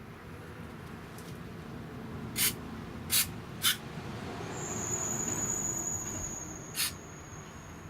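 Sharp clicks and taps from small parts being handled, four in all, over a low rumble. A thin high steady tone sets in about halfway through.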